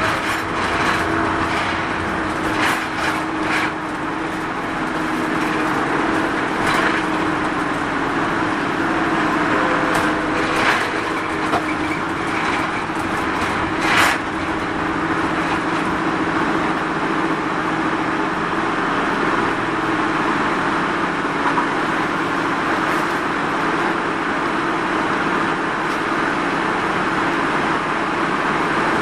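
Mitsubishi Fuso Rosa minibus (TPG-BE640GSAJ) running on its route, heard from on board: a steady diesel engine drone under road and cabin noise. A few sharp rattles or knocks from the body come through, the loudest about halfway.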